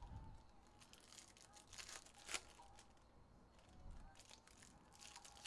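Faint crinkling and crackling of foil trading-card pack wrappers (Topps Chrome UEFA jumbo packs) being handled, with one sharper crackle a little past two seconds in.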